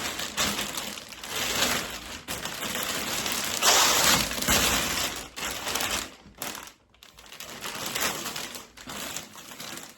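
Plastic vacuum storage bag crinkling and rustling as folded towels are handled and packed into it, loudest about four seconds in.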